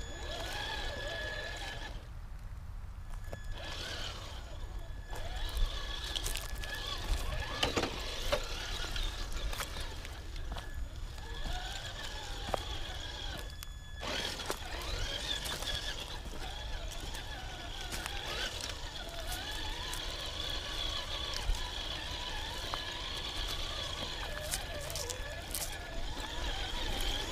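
Traxxas TRX-4 Sport RC crawler's electric motor and drivetrain whining, the pitch rising and falling with the throttle over a steady high electronic whine, with scattered clicks and knocks from the tyres and chassis on the terrain. A low wind rumble on the microphone sits underneath.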